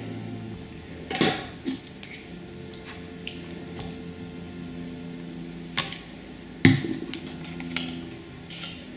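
Handling noises of a glue stick and paper on a notebook at a tabletop: a few sharp knocks and short rustles as glue is rubbed on and the paper edge is folded and pressed. Soft steady background music plays underneath.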